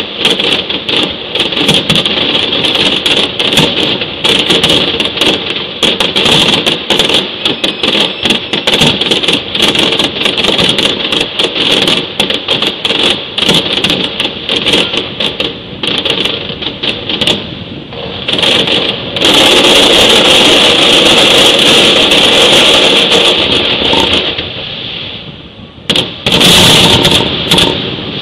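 A fireworks display going off, with many sharp bangs and crackles in quick succession over a steady high whine. About two-thirds of the way in, the bangs merge into a dense, continuous crackle for several seconds. It drops away briefly, then comes one more loud flurry near the end.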